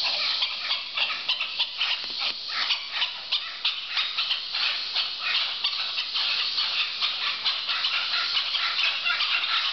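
Mantled howler monkeys howling: a loud, continuous chorus of rough, rapid pulses.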